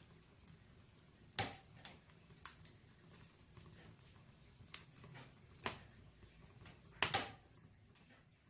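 Firewood burning in a fireplace, crackling with irregular sharp pops, the loudest a quick pair about seven seconds in, over a faint steady low hum.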